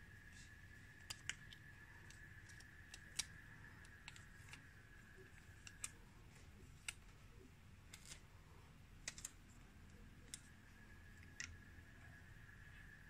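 Faint, irregular small clicks and ticks of plastic film, sticker sheets and packaging being handled on a tabletop. A faint steady high-pitched whine sits underneath, fading out around the middle and returning near the end.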